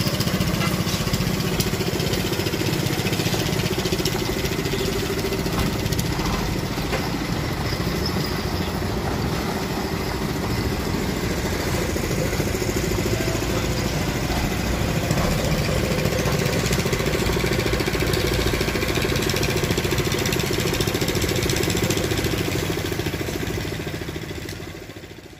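A truck's diesel engine idling steadily with a fast, even pulse, fading out near the end.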